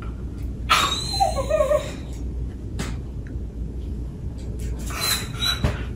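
Dog making a brief whining sound with a wavering pitch about a second in, and a second, noisier vocal sound near the end, over a steady low hum.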